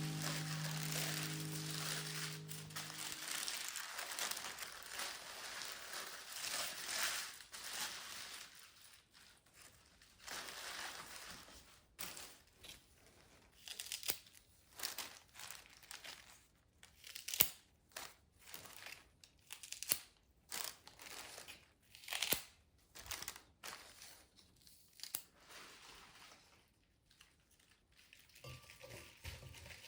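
Soft background music fading out in the first few seconds, then irregular handling noises: short crinkling and rustling sounds with small clicks, coming in uneven bursts.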